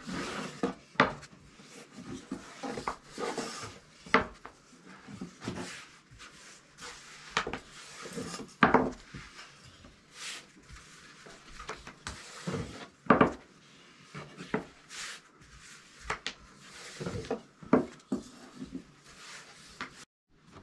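Kitchen utensils and cookware handled: irregular knocks and clinks of metal and wood, a few louder clacks among them.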